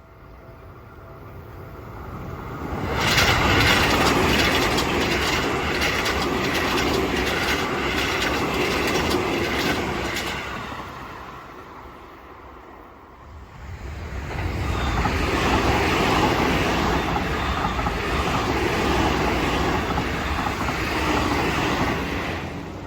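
Two Seibu Railway electric trains pass close by one after the other. Each rushes past for about eight seconds with a clickety-clack of wheels over the rail joints, with a short lull in between.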